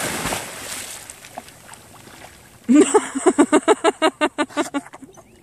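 A dog splashing through shallow pond water as it bounds in after a toy, the splashing fading as it starts to swim. About halfway through, a rapid run of short voiced sounds, about five a second, close and loud.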